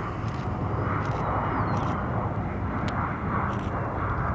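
Bombardier CRJ regional jet's GE CF34 turbofan engines running as the jet moves along the runway: a steady jet rush with a low hum under it.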